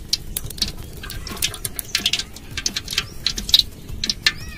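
Wood fire crackling under a cooking pot: irregular sharp pops and snaps, a few every second.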